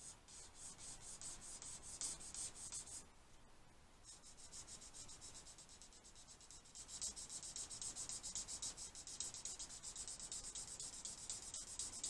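Alcohol marker nib rubbing over sketchbook paper in quick back-and-forth strokes as it blends colour. The strokes pause for about a second near three seconds in, then resume and get louder from about seven seconds.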